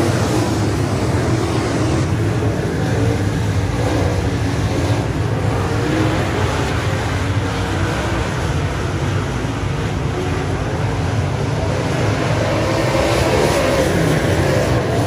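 Dirt late model race cars lapping a dirt oval at racing speed, their V8 engines running loud and steady as the pack goes round, swelling slightly near the end.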